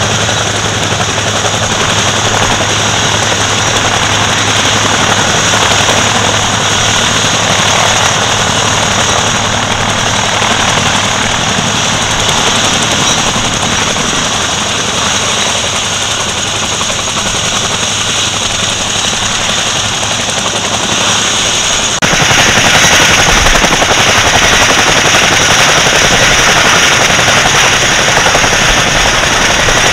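The twin Pratt & Whitney R-1830 Twin Wasp radial engines of a Consolidated PBY Catalina amphibian running on the ground, a steady, rough drone. About two-thirds of the way through the sound jumps suddenly louder.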